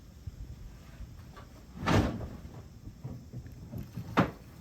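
Two knocks from hand tools working at a seized bolt on the motorcycle's clutch release arm: a heavier clunk about two seconds in and a short sharp knock near the end.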